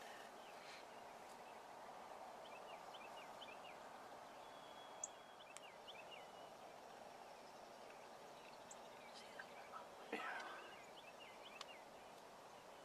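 Wild turkey gobbling once, a short burst about ten seconds in, over a faint outdoor hush with a few soft high chirps.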